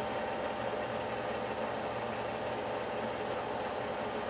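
Steady whirring hum of a film projector running, with a fast, even ticking in it and no change in level.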